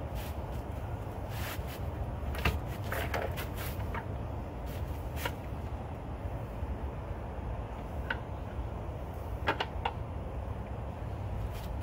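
Scattered light knocks and clicks as an outboard lower unit is drawn down and its driveshaft slides out of the midsection, the sharpest about two and a half seconds in and a quick cluster near the end, over a steady low rumble.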